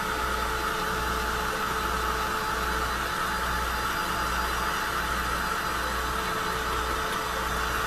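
Handheld hot-air blower, a crafter's heat tool or hair dryer, running steadily to dry ink or paint on the project.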